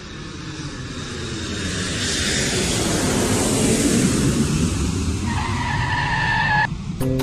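Cartoon sound effect of a vehicle approaching: a rushing engine noise grows louder over several seconds. About five seconds in, a tyre squeal as it skids to a stop, cutting off sharply. A plucked guitar tune starts right at the end.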